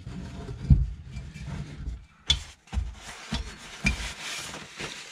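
Metal hydraulic camper jack cylinder handled on a wooden floor: several knocks and thumps, then paper towel rubbing and rustling near the end as it is wiped.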